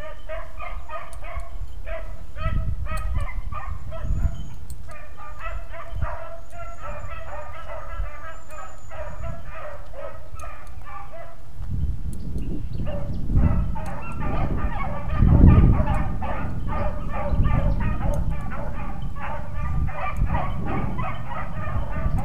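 A pack of beagles baying as they run a scent trail, many voices yelping over one another without a break. From about twelve seconds in, a low rumbling on the microphone joins them.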